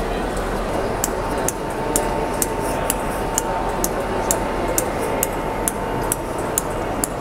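Railway station background noise with a steady hum and a regular light ticking, about two ticks a second, starting about a second in.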